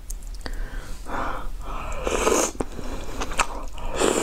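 Noodles being slurped and chewed in close-up, in several wet, noisy bursts, with a few sharp clicks between them.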